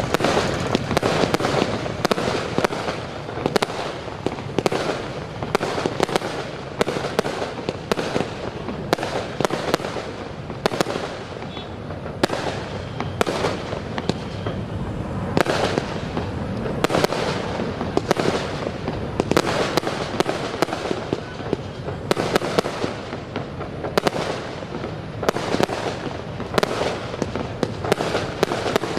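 Fireworks going off in rapid succession: a dense, continuous crackle of many sharp bangs and pops, swelling into louder clusters every few seconds.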